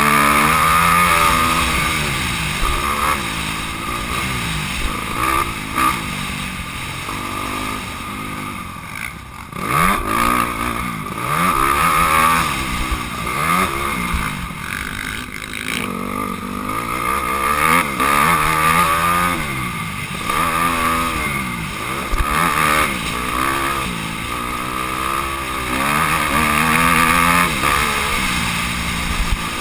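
Honda CRF250R's single-cylinder four-stroke engine, heard on board, revving up and down over and over as the rider twists the throttle on and off through the gears around a motocross track. There is a brief dip about nine seconds in.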